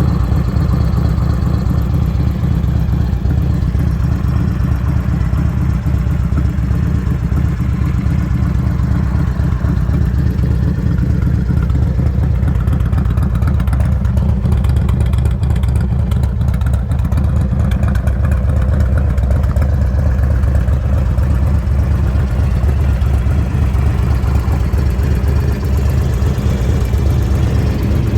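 1995 Harley-Davidson Road King's Evolution V-twin running through its exhaust at a steady, loud idle.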